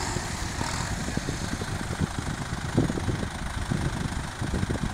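Farm tractors' diesel engines idling together, a steady low running sound with small irregular knocks.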